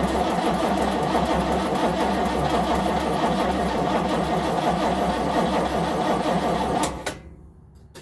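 Starter motor cranking the cold Chevy 350 V8 of a 1970 Nova SS without it firing, after the car has sat all winter. The cranking stops abruptly about seven seconds in.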